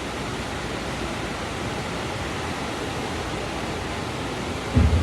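Steady rush of wind on the microphone, with a brief low thump near the end.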